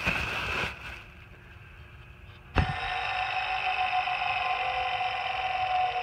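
Pulley of an old serpentine belt tensioner from a Ford F-250, turned by hand: brief handling noise, then about two and a half seconds in a sharp click and a steady whir at one constant pitch. The pulley's bearing is worn, which the owner takes for bad bearings ('something in it's not happy').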